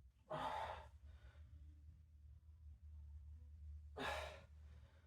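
A man's heavy breaths out, twice, about three and a half seconds apart, the effort breathing of a lifting set. A low steady hum runs underneath.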